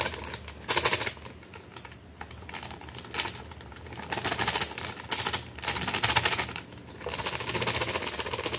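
Plastic packet of grated cheese crinkling and crackling as it is shaken out over food, in several bursts with short pauses between them.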